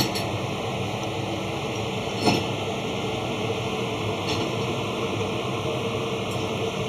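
A steady whirring machine noise with a faint constant tone, and a light knock about two seconds in.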